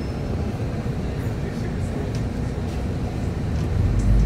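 Steady low rumble of a city bus's engine and road noise, heard from inside the passenger cabin, growing louder near the end.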